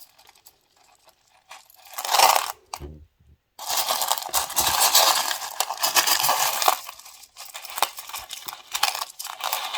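A pile of faced rough opal pieces clinking and clattering against each other as they are grabbed and stirred by hand. It comes in bursts, with the longest, densest stretch of clatter in the middle.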